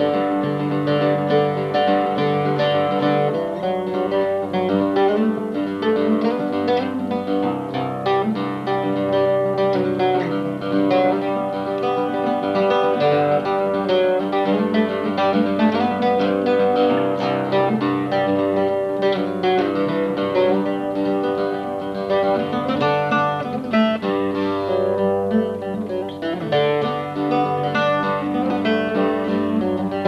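Archtop mandocello played solo: a tune picked note by note, with low bass notes ringing under the melody.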